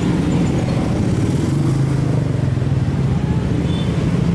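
Motorcycle and minibus engines running in slow street traffic: a steady, low engine hum with no single vehicle standing out.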